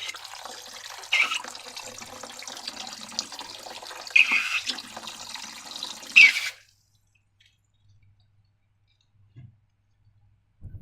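Liquid slime mixture pouring and splashing wetly for about six seconds, with a few louder splashes, then stopping suddenly.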